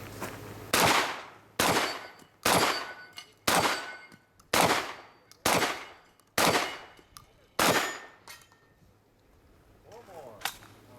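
Eight shotgun shots from a semi-automatic shotgun, fired about a second apart in a steady string, each with a sharp crack and a short ringing tail.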